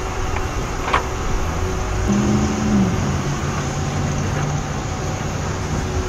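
Motor vehicle traffic going by on the street, with an engine note that drops in pitch about two seconds in and then holds steady.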